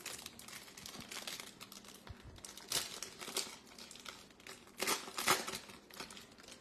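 Foil trading-card pack wrapper crinkling as it is handled and torn open, in a few sharp bursts of rustling, the loudest about a third of the way in and again near the two-thirds mark.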